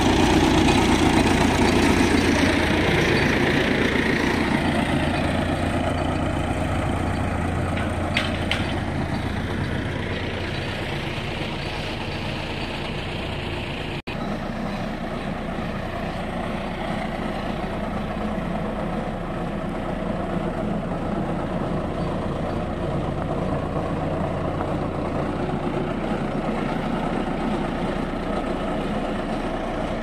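Diesel engine of a three-wheel static road roller running steadily as the machine rolls and compacts a bare earth road bed. Loudest in the first few seconds, then a little fainter.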